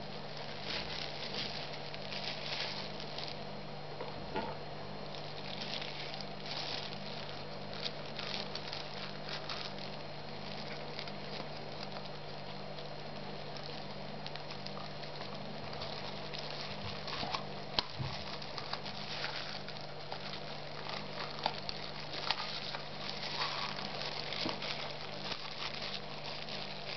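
Thin disposable plastic gloves rustling and crinkling in irregular bursts as hands handle a rubber brake-caliper seal, with a few small clicks, over a steady low hum.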